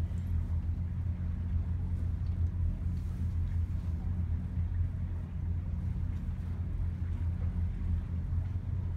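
Steady low machine drone from the houseboat's onboard machinery, an engine-like hum that holds unchanged throughout.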